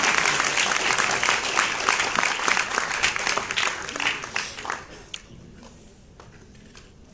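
Audience applauding, with dense clapping that tapers off about five seconds in, leaving only a few scattered claps.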